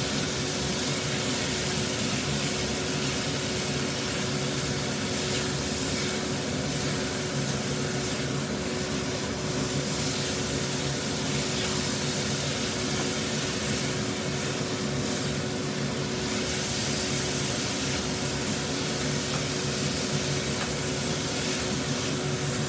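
Chicken, shrimp and diced pineapple sizzling steadily in a non-stick frying pan over a gas flame as they are stir-fried, with a steady hum underneath.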